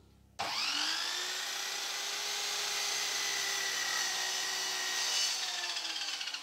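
An electric power tool's motor switches on and quickly spins up to a steady whine. About five seconds later it is switched off and winds down with a falling pitch, fluttering as it slows near the end.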